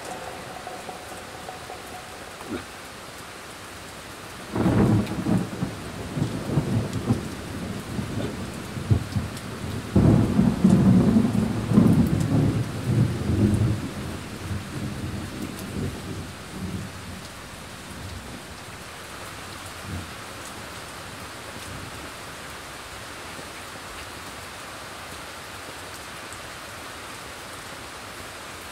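Steady rain hiss with thunder rumbling. One long roll begins about five seconds in, and a second, louder one about ten seconds in dies away over several seconds.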